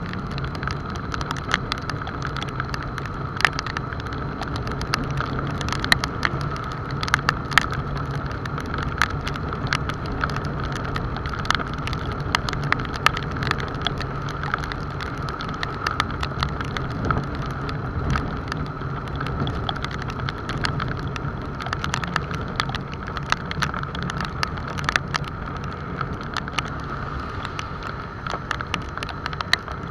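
Motorcycle engine running steadily at cruising speed in the rain, with raindrops ticking on the camera as many sharp, irregular clicks over a constant rushing noise.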